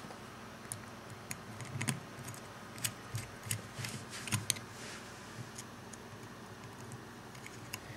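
Light clicks and taps of a grip panel being fitted to the frame of a Norinco 1911A1 pistol, scattered and irregular, most of them in the first half.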